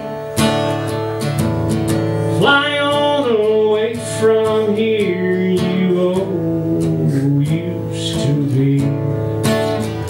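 Acoustic guitar strummed steadily, with a man's voice holding a long, wavering sung note from about two and a half seconds in to about seven seconds.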